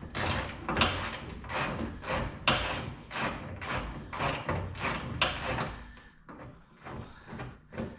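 Hand ratchet wrench clicking through quick back-and-forth strokes, about two to three a second, undoing a horn bracket bolt. The strokes stop about six seconds in, leaving only a few fainter clicks.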